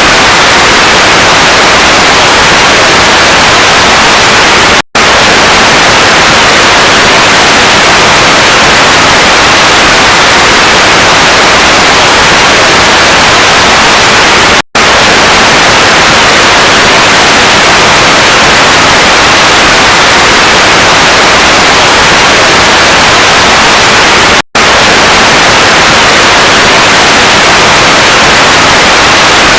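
Loud, steady static hiss spread evenly from low to high pitch, cut by three split-second dropouts about ten seconds apart.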